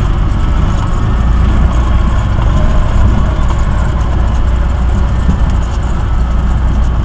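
Cessna 172 Skyhawk's four-cylinder Lycoming engine and propeller running steadily with wind rush, heard from inside the cockpit on final approach to landing. The low drone strengthens about a second in.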